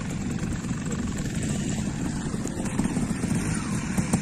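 Trials motorcycle engine running at low revs, a fast steady thumping that picks up slightly in the second half as the rider works through rocky ground.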